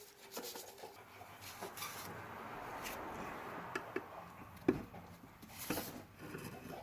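Light metal clicks and scraping from a valve spring compressor being threaded in and worked on an LS V8 cylinder head, with two sharper knocks past the middle.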